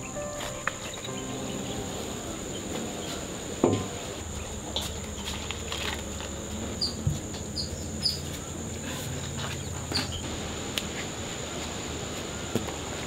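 Steady high-pitched insect drone like crickets, with scattered light taps and clicks, the loudest a little under four seconds in, and a few short high chirps in the middle.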